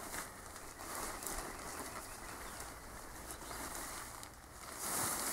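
Nylon tent fly rustling and swishing as it is pulled and spread over a bivy tent, with a brighter swish near the end.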